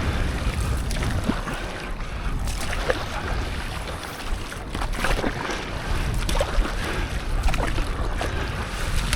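Sea water sloshing and splashing around a stand-up paddleboard, with short irregular splashes over a steady low rumble of wind on the microphone.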